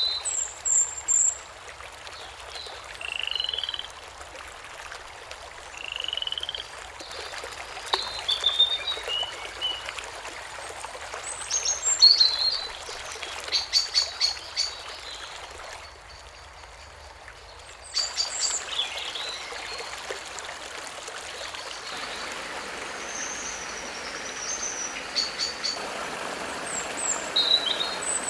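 Wetland-stream nature sound: frogs and birds calling in short chirps and rapid pulsed trills over a steady hiss of running water.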